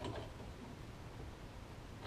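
A faint click of hands handling metal parts at a car's rear brake hub near the start, then a quiet steady low hum of room tone.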